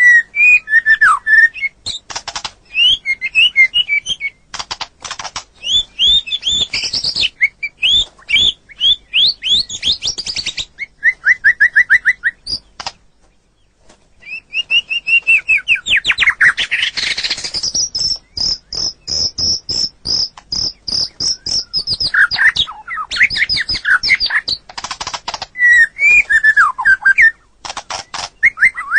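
White-rumped shama (murai batu) singing a loud, varied song of whistled slurs, trills and sharp clicking notes, with a run of rapid repeated notes past the middle and a brief pause a little before halfway.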